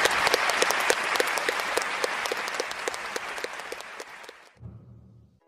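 Arena crowd applauding, with regular rhythmic clapping several times a second running through the applause; the sound fades out over the last couple of seconds.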